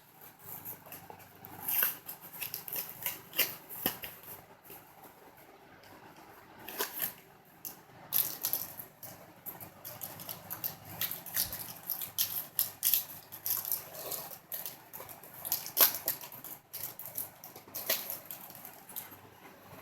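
A Magic: The Gathering booster pack's foil wrapper crinkling as it is torn open, and the trading cards inside being handled, in irregular short crackles and rustles.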